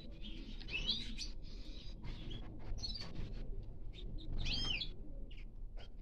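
Small songbirds chirping and calling: a scatter of short high chirps and whistled notes, the clearest a rising whistle about a second in and an arched whistle a little past halfway.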